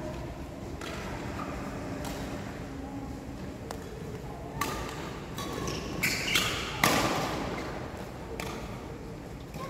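Scattered sharp knocks and short squeaks ringing in a large badminton hall over low background noise and faint voices; the loudest knock comes about seven seconds in.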